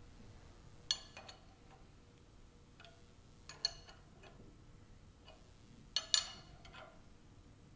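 Sharp metallic clinks of a steel wrench working the nuts on milling-machine step clamps as they are tightened down: a few separate clinks, about a second in, around the middle, and a close pair about three-quarters through.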